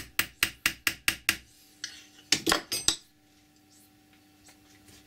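Small hammer tapping, metal on metal, on an Allen key seated in a seized, crud-filled Allen head bolt on a lathe compound slide's gib strip, to shock it loose. A quick run of about seven light taps, then a few slower ones, stopping about three seconds in.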